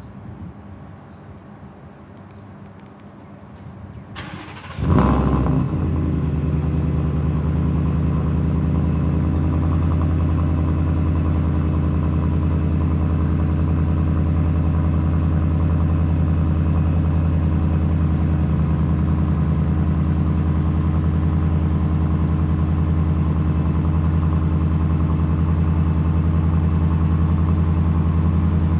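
Shelby F-150 Super Snake's Whipple-supercharged 5.0 L V8 being started cold through its Borla performance exhaust: the starter cranks briefly about four seconds in, the engine catches with a loud flare, then settles into a steady idle.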